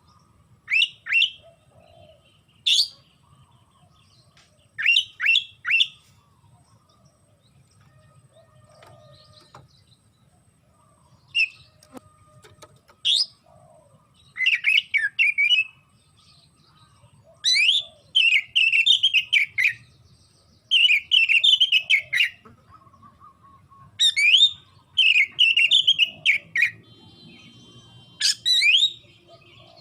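Oriental magpie-robin (kacer) singing: short groups of quick upward-sweeping whistles at first, then longer, busier chattering phrases, each burst separated by brief pauses.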